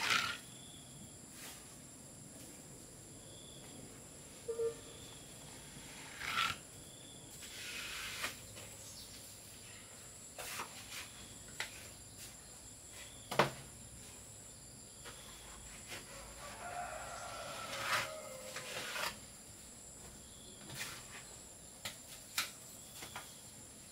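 Scattered taps, knocks and scrapes of hand work inside a cement-rendered tank, the sharpest a single knock about halfway through and a run of scraping a little later, over a faint steady high hiss.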